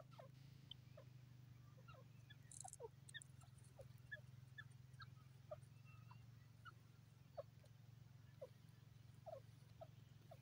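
Grey francolins giving faint, soft short calls while foraging, about two notes a second, each sliding downward, over a steady low hum.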